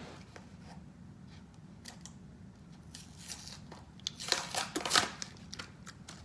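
Foil wrapper of a Pokémon card booster pack crinkling as it is opened, with light rustles at first and a louder burst of crinkling about four seconds in.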